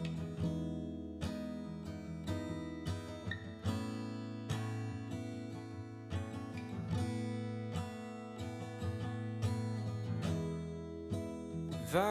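Background music: strummed acoustic guitar playing chords in a steady rhythm.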